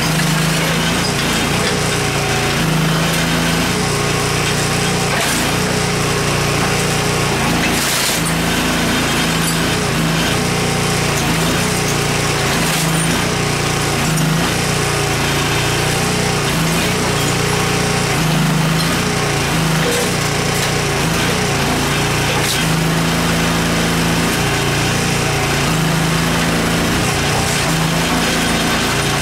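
Terramite compact backhoe's small engine running steadily, its pitch dipping again and again as the hydraulics take load while the arm works. A few sharp cracks as the television is crushed.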